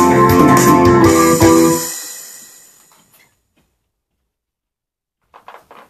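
Rock keyboard music played on an Ensoniq SD-1 synthesizer stops about two seconds in, the last notes dying away over a second. Near the end come a few faint shuffles.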